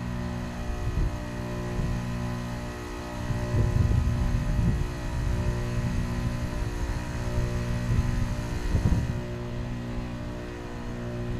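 2025 Carrier Sentry heat pump outdoor unit running during its defrost cycle: a steady, many-toned compressor hum under a low rumble that swells about four seconds in and again near nine seconds.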